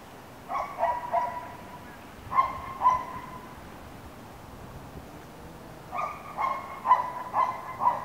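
Short, sharp animal calls in three groups: three quick calls, then two, then a run of about five near the end.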